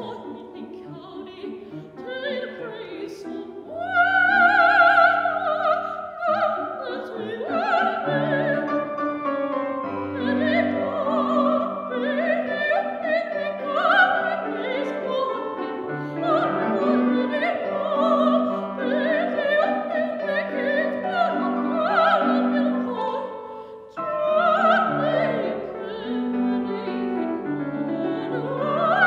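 A woman singing in classical operatic style with vibrato, accompanied by a grand piano. A loud held note comes about four seconds in, and the music briefly drops away just before the last few seconds, then picks up again.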